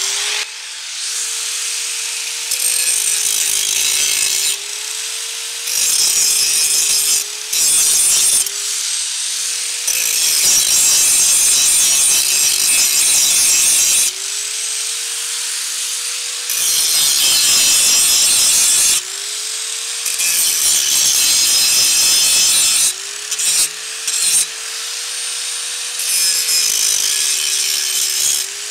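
A 4-1/2 inch angle grinder runs steadily with a constant motor whine while its wheel is worked along the edge of a rusty steel lawnmower blade to sharpen it. Repeated grinding passes of one to four seconds each make a loud, rushing noise, and the motor's pitch sags slightly under each pass as the wheel bites.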